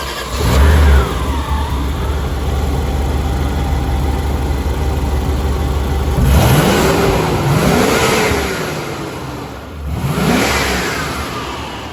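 Audi V8 32-valve engine, just started, with a brief blip before it settles into a steady idle. It is then revved twice: a long rev that climbs and falls away about halfway through, and a shorter one near the end.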